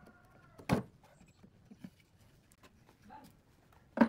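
Hand-working a metal bolt into a drilled hole in a pine board on a wooden workbench: quiet handling with a sharp knock about three-quarters of a second in, a few light ticks, and another sharp knock near the end.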